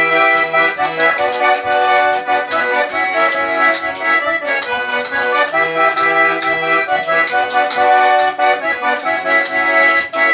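Instrumental break between sung verses: an accordion plays the tune and chords over a steady, light percussion beat.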